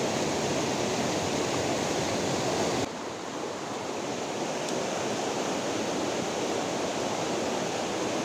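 Steady rushing of a shallow rocky creek flowing over stones. A little under three seconds in, the rush drops abruptly to a somewhat lower level and carries on.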